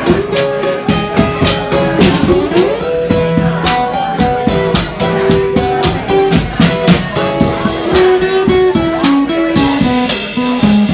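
Live guitar playing a melodic line over a steady drum beat, with a rising bend about two seconds in.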